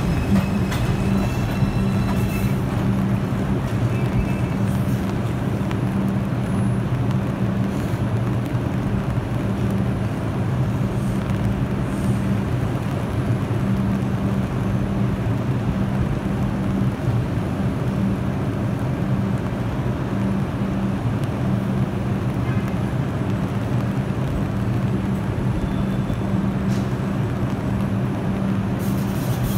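New York City subway train of R142 cars standing at an elevated station, its onboard equipment giving a steady low hum.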